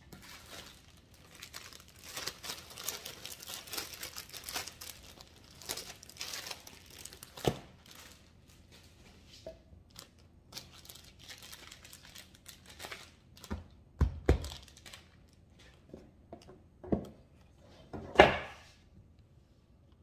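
Rustling and crinkling handling noise for the first several seconds, then a few separate sharp knocks and thumps, the loudest about two seconds before the end.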